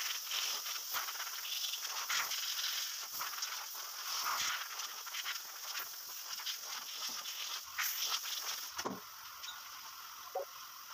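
Metal chips being wiped and swept across a steel milling machine table: a scratchy, rustling hiss with many small clicks, which eases off near the end.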